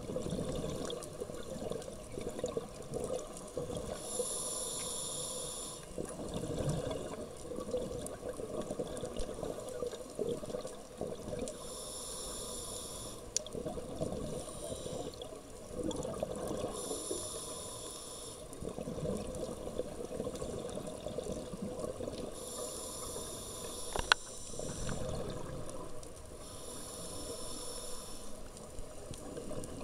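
Scuba diver breathing through a regulator underwater: five bursts of bubbling exhalation, each about a second and a half long and several seconds apart, over a steady low underwater rumble. A single sharp click about four fifths of the way through.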